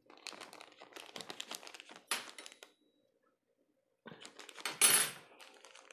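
Crinkling and rustling of a plastic packet of dried bonito flakes being handled as the flakes are shaken out. It comes in two spells with about a second of silence between them, and the loudest crackle comes near the end.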